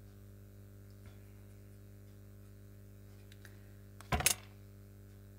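Small clicks and taps of paper craft pieces being handled and set down on a work table, with a short quick cluster of sharp taps about four seconds in, over a steady low hum.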